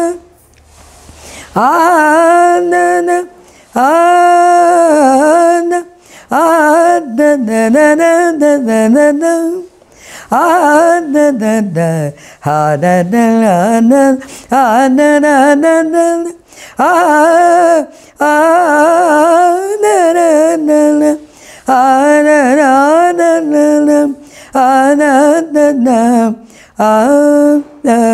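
An elderly woman singing alone without accompaniment, in phrases of about two seconds with short breaths between. Her pitch bends and wavers through ornamented turns.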